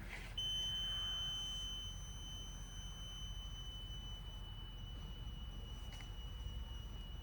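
A steady, high-pitched electronic whine from the Haas CNC machine's control as it is powered down, coming in about a third of a second in and slowly getting quieter over a low electrical hum.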